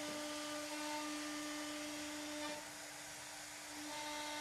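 CNC router spindle running with a steady high whine. The whine drops a little in level past the halfway mark and comes back up near the end.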